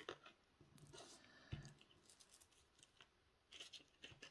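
Near silence, with a few faint rustles and soft clicks of a plastic zip bag of rhinestone drills being handled.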